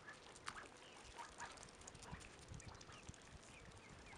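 Faint, scattered peeps and short calls from a small flock of chickens and young waterfowl, some calls dropping in pitch.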